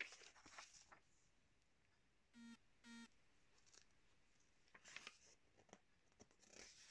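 Faint rustling of glossy magazine pages turned by hand, with a rustle right at the start and more about five and six and a half seconds in. Two short tones, about half a second apart, come about two and a half seconds in.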